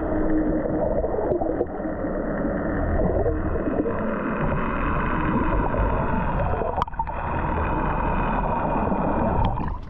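Muffled underwater sound picked up by a submerged camera: a steady rumble and gurgle of water around the boat's outboard lower units. There is one sharp click about seven seconds in.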